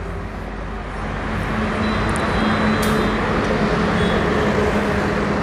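Road traffic on a highway: a passing vehicle's noise swells from about a second in and holds, with a steady low engine hum under it.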